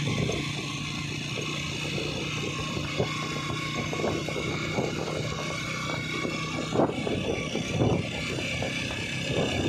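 Motorcycle engine running steadily while riding, a constant low hum mixed with rushing wind noise on the microphone.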